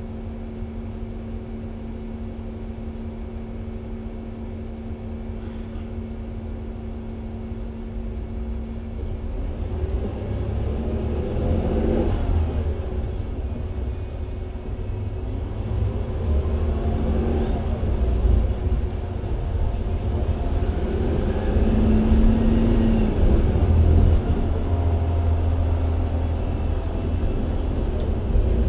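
Mercedes-Benz Citaro C2 G NGT hybrid articulated city bus: the natural-gas engine runs with a steady hum at first, then about nine seconds in the bus pulls away and gets louder, the engine note climbing and dropping back three times as the Voith automatic gearbox shifts up.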